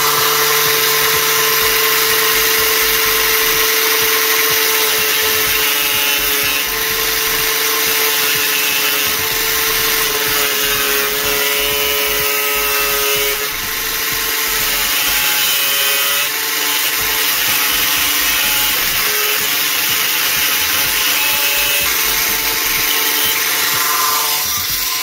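Angle grinder with a cutting disc running steadily, cutting a slot into a metal spoiler bracket.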